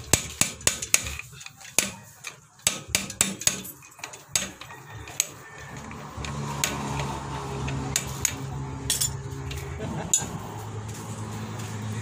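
Hammer knocking a tool against the spindle nut's lock in a truck's wheel hub, to free the lock: a quick run of sharp metal taps over the first few seconds, then a few more later. A low steady hum sets in about halfway.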